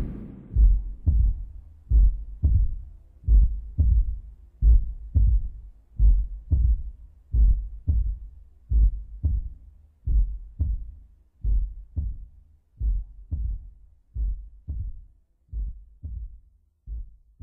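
Heartbeat sound effect: paired low thumps, lub-dub, one pair about every second and a half, slowly fading toward the end.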